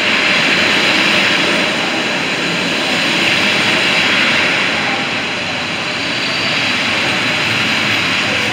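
PKP Intercity passenger coaches rolling past at close range as the train slows into a station: a loud, steady rush of wheels on rail, swelling and easing gently.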